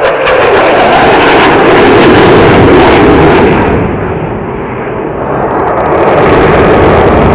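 Jet aircraft passing low and very loud, a rushing roar with crackle that eases about four seconds in and swells again as it comes back.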